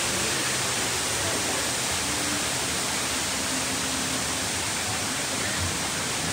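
Steady, even rush of flowing water echoing through the dark cave of a boat ride.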